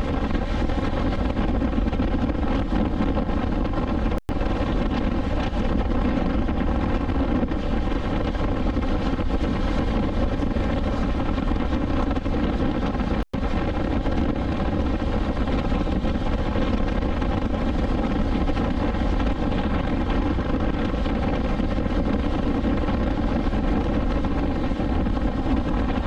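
BMW S1000XR motorcycle's inline-four engine running at a steady cruise, with wind noise. The sound cuts out briefly twice.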